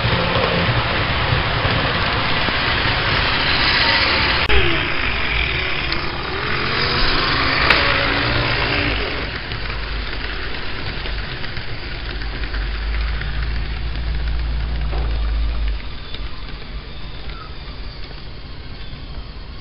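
HO scale model trains running on a layout: the steady whir of small electric motors and wheels rolling on the track. There are two sharp clicks, about four and a half and seven and a half seconds in, and a stronger low hum for a few seconds near the end.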